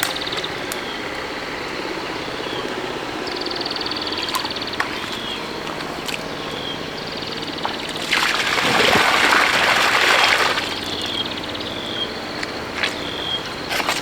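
Outdoor rural ambience of repeated high chirps and short buzzy trills from small wild animals, with a loud rushing noise lasting about two seconds a little past the middle.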